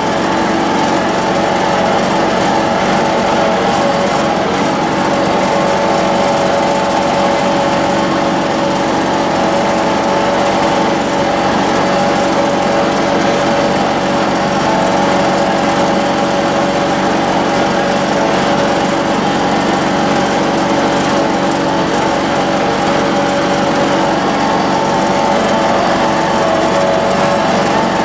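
John Deere X585 lawn tractor's engine running steadily at an even speed while the tractor drives, heard close up from the machine. No revving or change in pitch.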